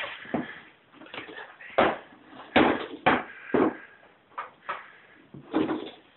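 A series of hollow knocks and thumps on a plastic toddler slide as a toddler climbs and steps about on its platform.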